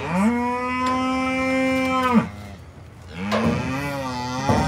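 Cattle mooing: two long calls, the first held steady for about two seconds, the second starting about three seconds in and wavering up and down in pitch.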